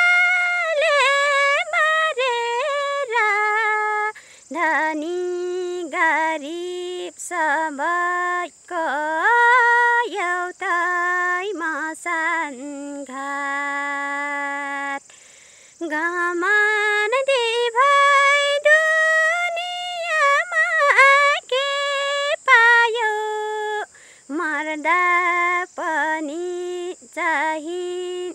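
A woman singing a Nepali folk song solo, unaccompanied, in short phrases with ornamented pitch glides and a long held note about halfway through.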